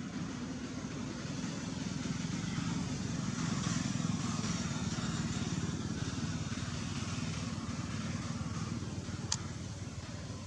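An engine running with a steady low rumble, growing louder toward the middle and easing off near the end. A single sharp click comes near the end.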